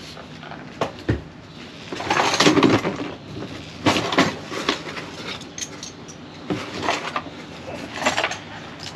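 Hand tools and packaging being handled in a cardboard box: a couple of sharp clicks, then bursts of rustling and clattering, the loudest about two seconds in.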